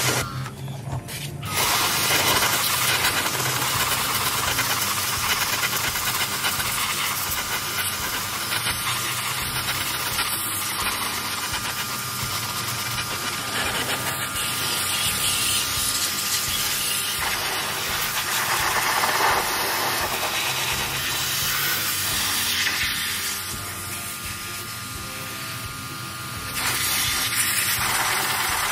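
High-pressure water spray hissing steadily as it blasts washing-machine parts clean, starting about a second and a half in, easing off briefly near the end and then picking up again.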